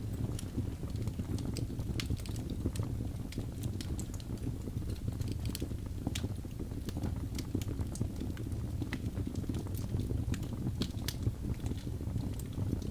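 Wood fire burning in a fireplace: a steady low rumble of flames with frequent sharp pops and crackles from the burning logs.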